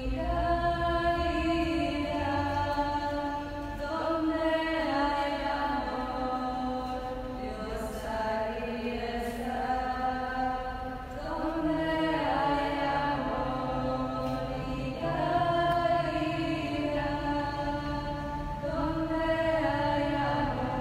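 Voices singing a slow liturgical chant in phrases of held notes, each a few seconds long. This is the sung Gospel acclamation of a Lenten Mass, between the second reading and the Gospel.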